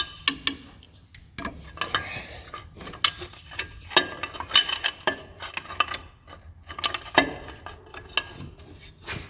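Hand tools and bolts clinking and scraping on metal as a pulley is bolted back on, a run of irregular sharp clicks and short rattles.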